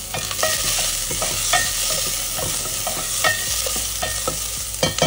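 Chopped onion sizzling in hot oil in a stainless steel pressure cooker, stirred with a wooden spatula whose strokes knock and scrape against the pot every half second or so, the metal ringing briefly at some knocks.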